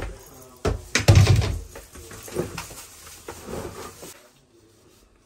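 Knocks and a heavy soft thud as cut raw fish pieces and a colander are handled against a large bowl, loudest about a second in. Softer wet shuffling follows as the pieces are moved about by hand, dying away after about four seconds.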